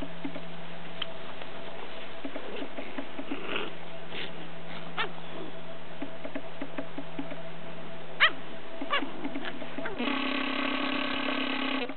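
Seven-week-old Rottweiler puppies giving several short, high yips and whimpers while they play, the loudest about eight seconds in. For the last two seconds a steady droning tone sounds.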